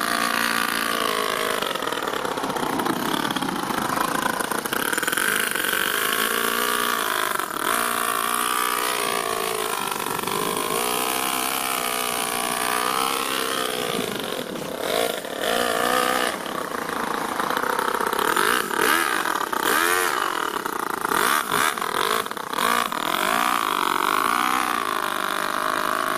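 Toyan FS-L200 two-cylinder four-stroke nitro model engine running in an RC truck as it is driven, its pitch rising and falling over and over as the throttle is opened and eased off.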